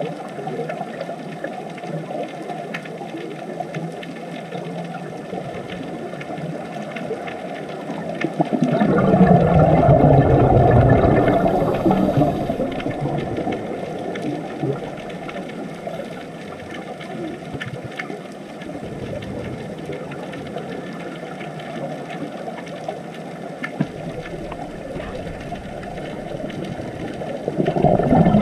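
Underwater ambience: a steady low water hiss and rumble with faint scattered clicks, swelling into a louder rush about nine seconds in and again near the end.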